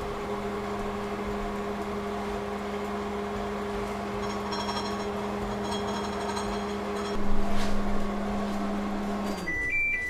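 Microwave oven running with a steady electrical hum while it heats a covered mug of rice and water. Near the end the hum cuts off and the oven starts beeping, the signal that the cooking cycle has finished.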